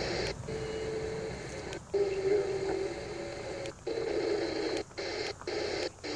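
President Grant II CB radio receiving band static on AM as it is stepped through channels. The hiss drops out briefly about six times at uneven intervals, and short steady tones come and go on some channels.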